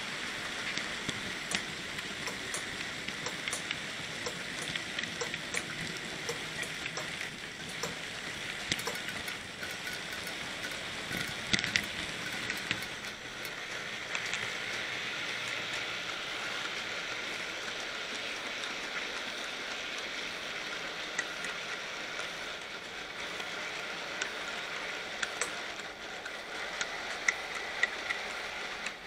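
N gauge model train running along the track, heard from a camera riding on it: a steady crackly hiss of wheels and motor with scattered light clicks, a sharper cluster of clicks near the middle.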